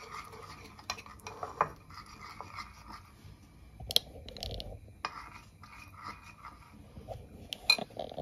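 Metal spoon stirring a thick sauce in a ceramic bowl, scraping and clinking against the bowl, with a few sharper clinks, the loudest about four seconds in and again near the end.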